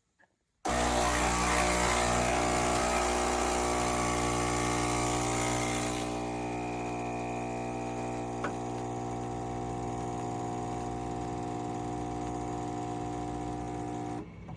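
Nespresso Lattissima Pro espresso machine's pump starting suddenly and running with a steady buzz, with a hiss over it for the first few seconds; there is a single click about eight seconds in, and the pump cuts off near the end.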